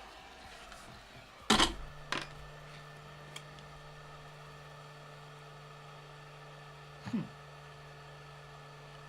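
Two sharp clicks at the workbench, after which a steady low hum starts up and keeps running; a short knock follows about seven seconds in.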